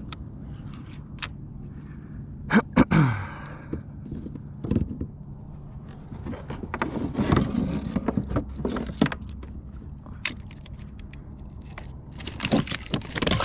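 A hooked redfish being reeled in to the side of a kayak: scattered knocks and rattles of the reel and gear, and a burst of splashing near the end as the fish comes to the surface.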